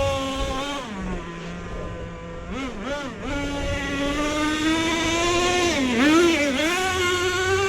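Traxxas T-Maxx nitro RC truck's small two-stroke glow engine revving on and off the throttle. It drops to a low, steady note about a second in, blips up and down, then is held at high revs from about three and a half seconds, rising slowly. There is a short dip with quick blips around six seconds before it climbs again.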